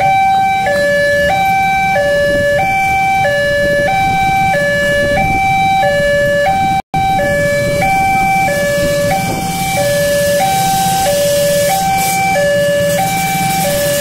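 Electronic warning alarm of an Indonesian railway level crossing, sounding from the signal's loudspeaker: two tones alternating evenly, each held a little over half a second. It is the sign that the crossing is closed for an approaching train. The sound cuts out for an instant about halfway.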